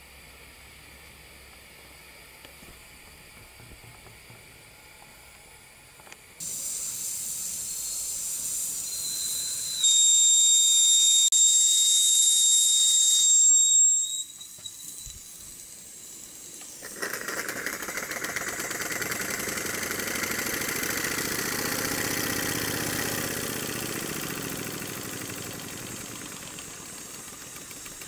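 Model steam boiler hissing, faint at first, then loud about six seconds in, with a steady whistling note for a few seconds before it drops away. About seventeen seconds in, the model steam beam engine starts on steam as the outlet valve is opened and runs steadily, easing a little near the end.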